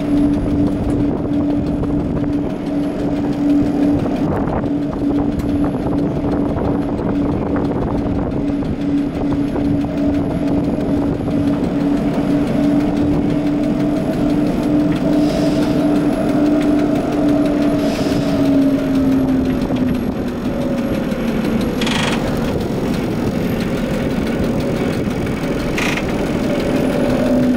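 A 1960 standard streetcar running on the rails, heard from inside the driver's cab: a steady drive hum over wheel and track rumble, the hum's pitch sinking a little about two-thirds of the way through. Two sharp clicks near the end.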